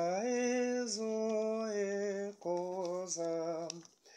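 A man singing a slow Xhosa hymn unaccompanied, holding long, steady notes, with a short break for breath about halfway and the line fading out near the end.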